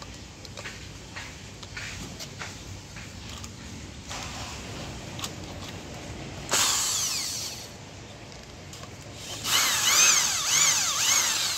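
Corded electric hand drill boring through a steel plate on a wooden board: a short burst about six and a half seconds in, then a longer run near the end, the motor's pitch rising and falling as the trigger is eased on and off. Light clicks and knocks of handling come before.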